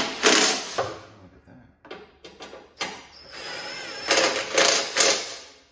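DeWalt cordless driver running in short bursts, driving the fasteners of a riding mower's deck belt cover. The longest burst is near the end, with a thin whine from the motor.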